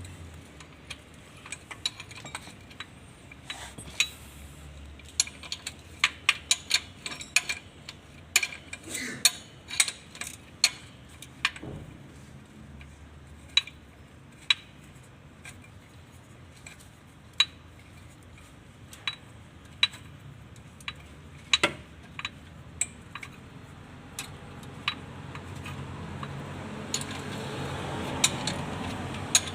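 Metal hand tools clinking and clicking irregularly against metal parts during repair work on a car engine, with some ratchet-like clicks.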